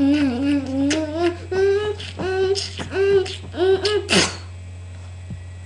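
A child beatboxing with the mouth and cupped hand, mixing hummed, sung notes that slide up and down with sharp clicks and snare-like hits. It stops about four seconds in, leaving a steady low electrical hum.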